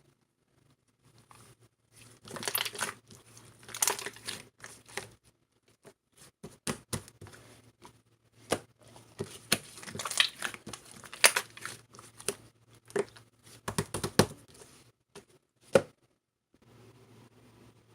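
Clear slime with clay mixed in being kneaded and squeezed by hand, giving irregular sticky clicks, pops and crackles over a faint low hum.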